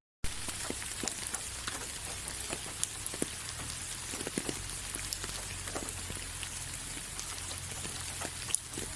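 Steady rain, an even hiss with many separate drops ticking on a surface. The sound cuts out for a split second at the very start.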